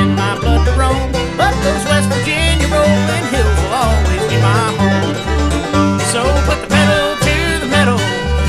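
Instrumental bluegrass-country music: banjo and guitar picking over a steady bass beat of about two notes a second, with a bending lead line that could be fiddle or slide guitar.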